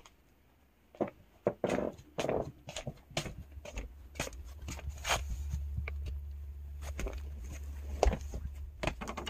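Footsteps in slippers on a wooden floor, with knocks and rubbing from the handheld camera being carried; a low steady hum comes in about three and a half seconds in.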